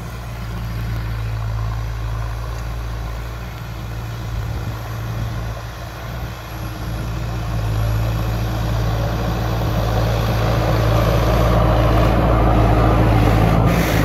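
Farm tractor's diesel engine running steadily under load as it pulls an 11-tine heavy cultivator through the soil, growing louder as the tractor comes closer and passes by near the end.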